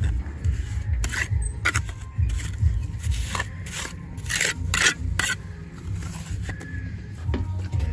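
Gloved hand and pointed steel trowel rubbing and scraping wet cement mortar onto a concrete block, in short, irregular strokes, over a steady low rumble.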